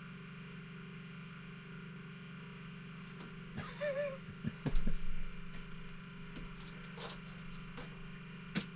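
A steady low hum, with a cluster of knocks and clicks about four to five seconds in. The loudest is a dull thump, and a few single sharp clicks come later.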